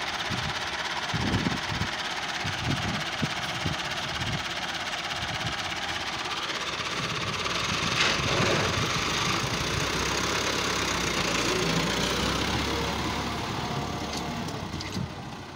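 Massey Ferguson 385 tractor's four-cylinder diesel engine running at idle, then growing louder about halfway through as the tractor is driven off, and fading near the end as it moves away.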